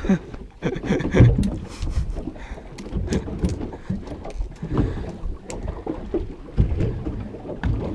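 Water lapping against the hull of a small boat drifting without its engine, with wind on the microphone and a few scattered knocks and clicks.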